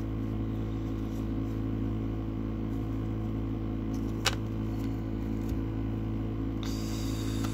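Steady low mechanical hum, with one sharp click about four seconds in. Near the end comes a soft papery rustle of trading cards being handled.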